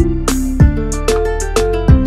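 Instrumental background music: short plucked notes over a steady beat.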